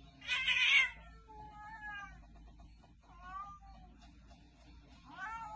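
A serval and a domestic cat squabbling: a loud, sharp hiss just after the start, then three short, wavering meowing calls, the last near the end.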